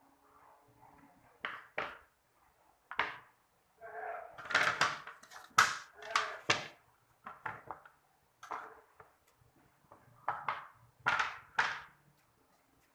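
Irregular knocks and clattering of hard objects being handled and set down, some single and some in quick rattling runs.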